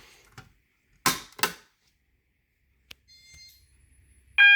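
Sharp mechanical clicks as a Siemens MSI-10B manual fire alarm pull station is pulled, then a faint beep, and near the end a fire alarm horn starts sounding loudly.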